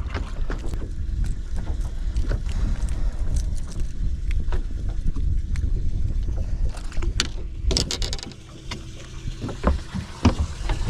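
Wind buffeting the microphone in a low, uneven rumble on a fishing boat, with scattered sharp clicks and knocks of handling. The rumble eases briefly about eight seconds in.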